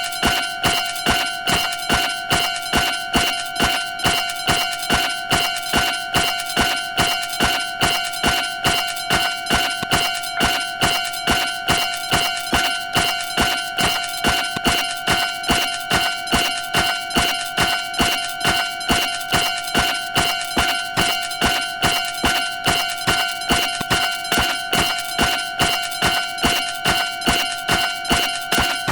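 Railroad crossing warning bell ringing repeatedly in an even rhythm, about two strikes a second, each strike a bright ringing tone.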